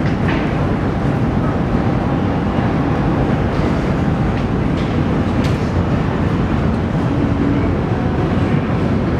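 New Jersey Transit commuter train running, a loud, steady rumble with a few faint clicks.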